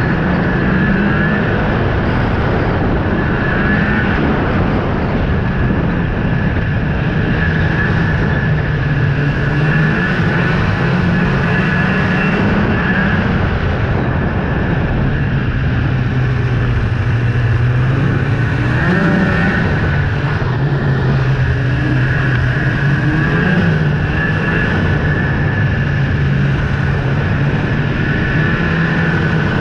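Snowmobile engine running steadily while riding along a groomed trail, heard from the sled, with a steady high whine over the engine note. The engine pitch rises briefly twice in the second half.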